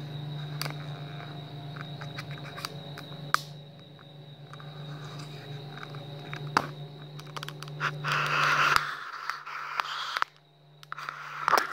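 Handling noise from a phone held close to its microphone: scraping rubs and scattered clicks over a steady low hum, with a louder rustling scrape around eight to ten seconds in. The hum stops with a click just before nine seconds.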